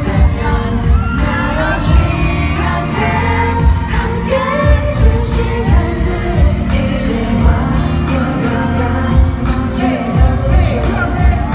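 K-pop song played loud over a concert sound system: a male group singing over a heavy bass beat.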